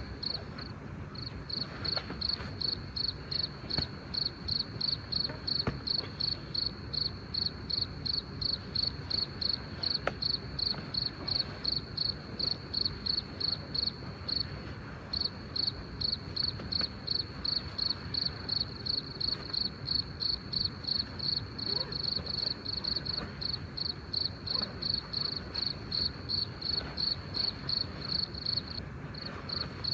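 Cricket chirping in a steady, high-pitched rhythm, about three chirps a second, pausing briefly about a second in and again about halfway through.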